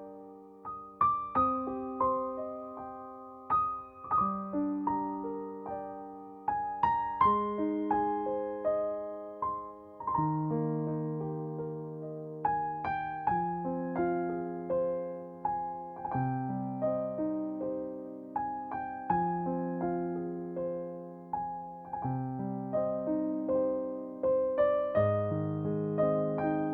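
Background music: slow solo piano playing sustained chords and melody notes.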